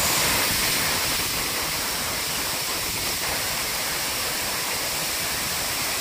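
Waterfall cascade: water rushing steadily over rocks.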